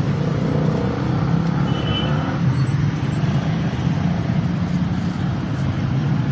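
Steady street traffic noise with a constant low engine rumble.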